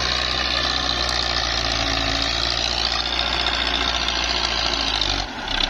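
Belarus MTZ tractor's diesel engine running steadily under load as it pulls a cultivator through the soil in fourth gear, no longer bogging down now that its pump has been redone. The low engine note drops away briefly near the end.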